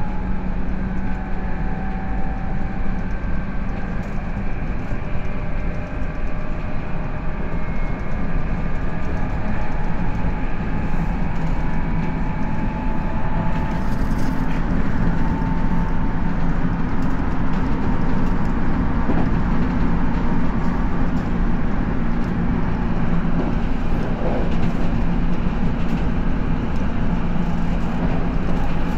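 A JR 211 series electric train with external-fan traction motors, heard running: a steady rumble of wheels on rail under a low motor hum. It grows a little louder about a third of the way in.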